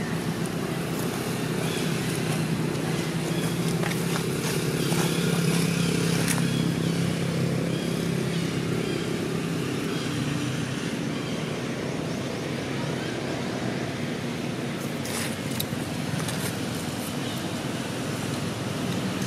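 Motor vehicle engine running close by: a steady low hum that swells to its loudest about five seconds in, then eases off.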